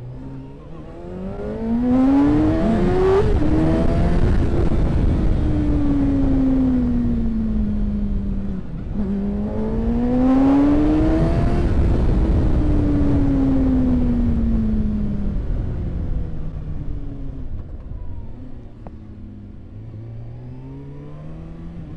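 2013 Kawasaki Ninja 636's inline-four engine pulling hard, its pitch climbing and then sliding down twice, with loud wind rush over the microphone. In the last few seconds it settles to a lower, quieter run.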